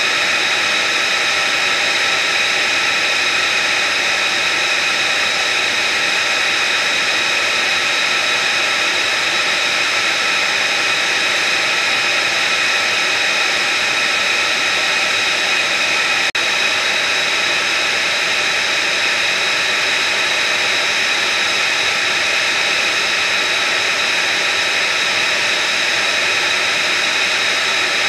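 Jet turbine running steadily at idle: a high-pitched whine of several steady tones over a loud rushing hiss.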